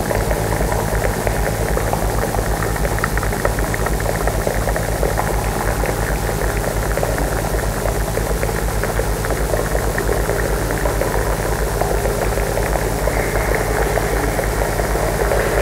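Live experimental electronic music: a dense, steady drone with a fast, even bass throb and a crackling texture over it.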